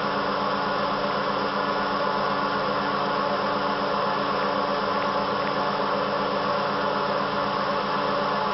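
The dual Colombo 12 HP spindles of a 1997 Motionmaster 3-axis CNC router run at a steady pitch while their bits cut into a wood sheet. The result is an even hum of several steady tones under a constant hiss.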